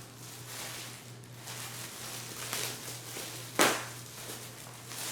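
Light rustling and handling noise with one sharp knock about three and a half seconds in, over a steady low hum.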